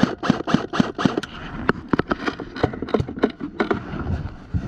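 Airsoft gun firing a rapid string of single shots, about four sharp snaps a second at first, then more irregular shots.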